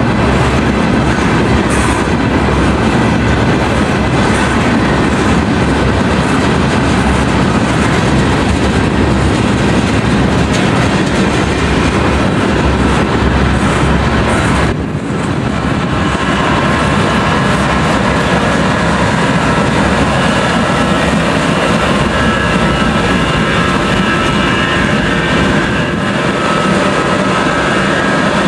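Freight train of tank cars rolling past, the wheels clicking over the rail joints in a steady, loud rumble. It drops briefly about halfway through, and faint high steady tones, like light wheel squeal, join in the second half.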